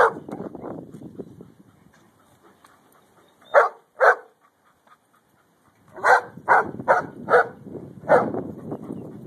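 Giant Schnauzer barking in short single barks: one, then a pair about three and a half seconds in, then a quick run of four and one more near the end.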